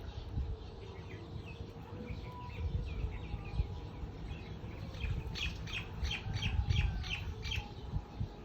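Small birds chirping, with a quick run of about eight sharp chirps in the second half, over a low rumble.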